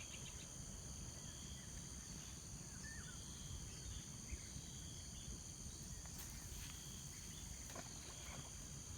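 Faint steady insect chorus: a constant high-pitched trill with a second, lower trill that comes and goes, over a low background rumble.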